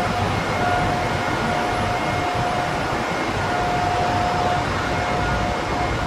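Steady machinery noise of a chemical tanker's engine room: a dense, even roar of running plant, with a high whine that comes and goes.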